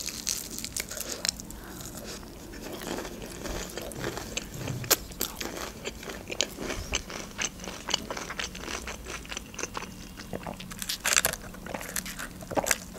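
Close-miked chewing of a crispy spicy fried chicken wing: a bite at the start, then a steady run of small crunches and mouth clicks. Near the end comes a louder sip through a drinking straw.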